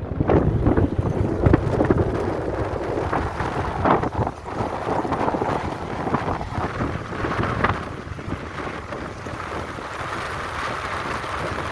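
Wind buffeting the microphone, gusting unevenly.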